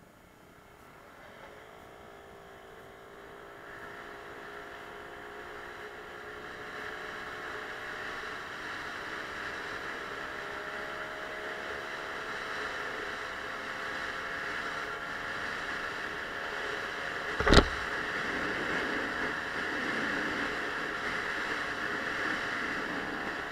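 Suzuki Let's 4 50 cc scooter's four-stroke engine pulling away from a stop, its tone rising slowly as the scooter gathers speed, with wind and road noise building. A single sharp knock about three-quarters of the way through.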